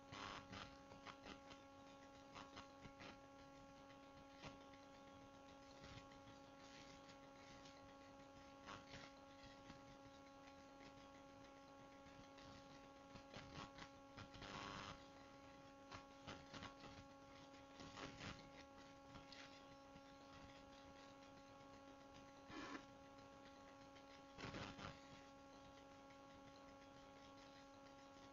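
Near silence: a faint steady electrical hum from the recording setup, with scattered faint clicks.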